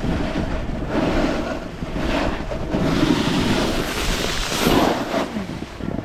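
Wind rushing over the microphone while a snowboard scrapes and slides over soft, wet snow during a run, with the noise swelling loudest near the end.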